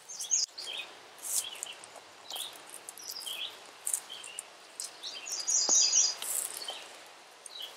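Small songbirds chirping in woodland: short, scattered high calls, with a quick trill of repeated notes about five and a half seconds in.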